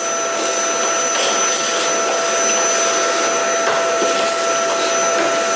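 Vacuum cleaner running steadily with a constant motor whine, sucking up broken windshield glass particles.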